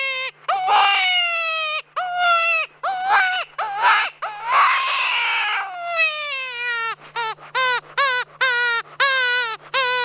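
Predator call playing a high, whining animal distress cry to lure in coyotes and bobcats: drawn-out wails falling in pitch, then from about six seconds in a quick series of short, falling yelps.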